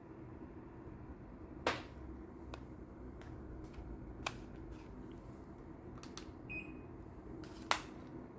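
Daikin FTKV35NVM4 split air conditioner indoor unit running with a quiet, steady low hum. Several sharp clicks sound over it, the loudest about a second and a half in and near the end, and a brief faint high tone comes past the middle.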